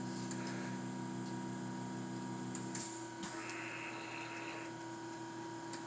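A steady low electrical hum made of several tones; the lower ones drop out about three seconds in, leaving a single tone. A brief soft hiss comes partway through.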